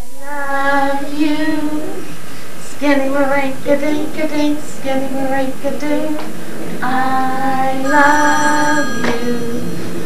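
A woman and a young child singing a slow tune together, holding long notes.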